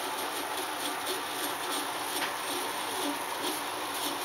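Stepper motors driven by TB6560 drivers, running together under a G-code test program: a steady mechanical whir with short stepping tones that change pitch as the motors speed up and slow down.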